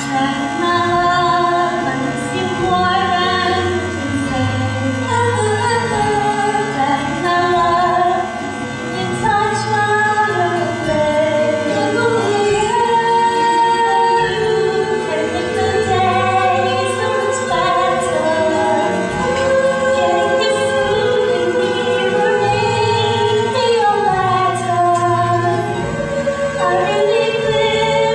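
Live musical-theatre song: voices singing a melody over instrumental accompaniment.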